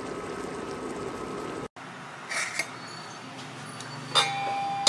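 Pork chops simmering in sauce in a wok, a steady bubbling hiss that cuts off abruptly after less than two seconds. Then a ceramic serving plate clinks sharply about four seconds in and rings briefly, with a second clink right at the end.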